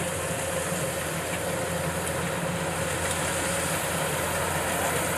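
Kubota combine harvester's diesel engine running steadily as the machine cuts rice, a constant drone.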